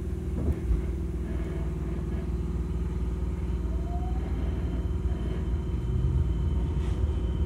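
Fukuoka City Subway 2000-series train heard from inside the car: a steady low rumble and hum, with a single thump about half a second in and a faint rising tone around four seconds in.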